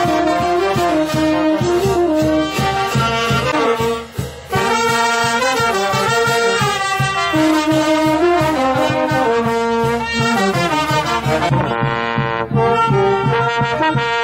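Brass band playing a melody over a steady drum beat, with a brief break about four seconds in.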